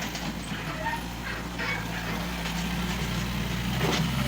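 JCB 1CX compact backhoe loader's engine running steadily, with a few short, light knocks and scrapes from the machine working.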